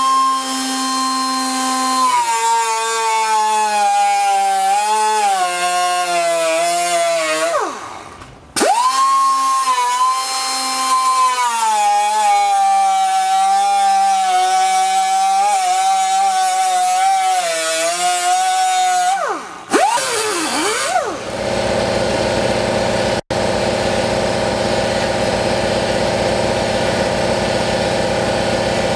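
Cutoff wheel cutting the overlapped sheet-metal edge of a fender patch panel: a loud high whine that sags and wavers in pitch as the wheel bites. It runs in two long passes with a short pause between them, and the second pass ends in a falling wind-down. After that, a steady mechanical hum with a low drone takes over.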